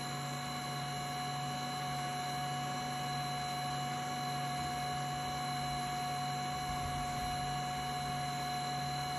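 HumminGuru ultrasonic vinyl record cleaner in its drying stage, its fans running at full speed: a steady hum with several high whining tones on top.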